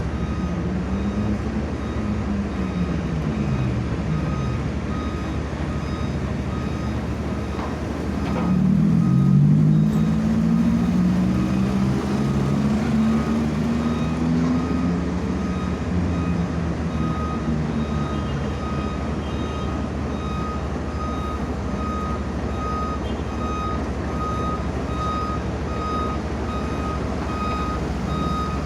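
Excavator diesel engine running, revving up under hydraulic load a couple of times, loudest about a third of the way in. From about the middle on, a machine's travel or reversing alarm beeps steadily, about one to two beeps a second.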